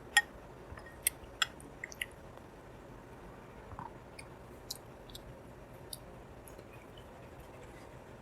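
Close-up sounds of a person chewing soft, syrupy sweets: sharp wet mouth clicks and smacks, several in the first two seconds and sparser after.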